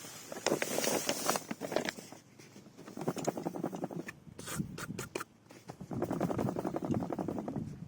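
Silica sand pouring into a sand filter tank, a grainy rushing hiss that comes in three spells of one to two seconds each.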